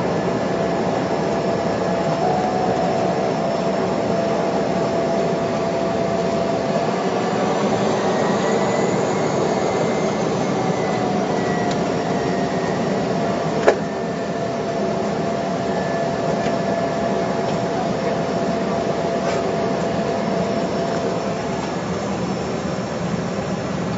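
Cessna 208B Caravan's Pratt & Whitney PT6A turboprop engine and propeller running at low taxi power, heard inside the cockpit as a steady drone with a faint turbine whine that shifts slightly in pitch now and then. A single sharp click about 14 seconds in.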